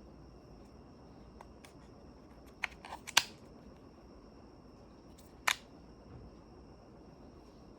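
Handling noises from unboxing: a few sharp clicks and knocks, a quick cluster about three seconds in and a single loud click about five and a half seconds in. A faint, steady high-pitched tone lies underneath.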